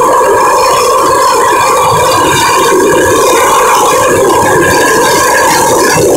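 AV-8 Harrier jump jet's Pegasus turbofan engine running very loud and steady overhead, a constant jet whine over the noise of the thrust.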